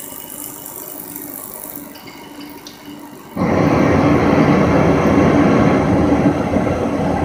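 Forced-draught gas burner's blower fan running steadily, then the burner lights about three and a half seconds in: a sudden, much louder steady rush of flame as it fires on its first stage.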